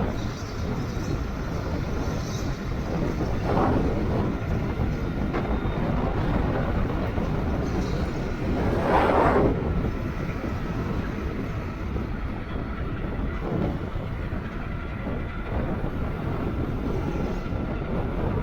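Strong gusting wind buffeting the microphone of a fast-moving e-bike: a steady low rumble with brief swells as gusts hit, the biggest about nine seconds in.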